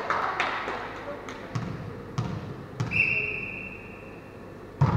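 Volleyball rally in an echoing sports hall: a serve and a series of sharp hits on the ball, each ringing in the hall, with a loud hit near the end. Players' voices can be heard. A steady high tone begins about three seconds in and fades over nearly two seconds.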